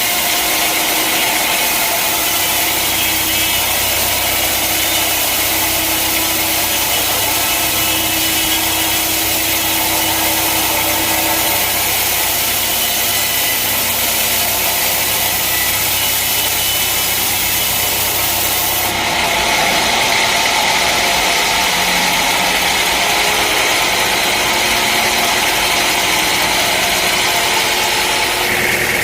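Engine-driven sawmill running steadily as it saws a log, with a shift in its tone about two-thirds of the way through.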